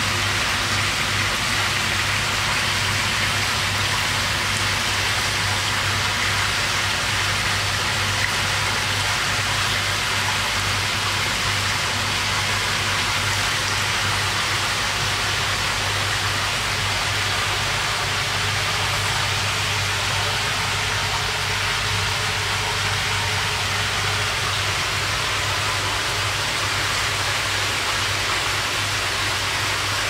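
Steady rushing water noise, unchanging throughout, with a low hum underneath.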